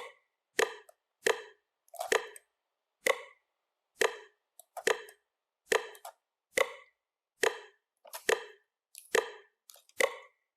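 FL Studio metronome clicking in a steady beat. It slows from about one and a half clicks a second to just over one a second as the project tempo is lowered.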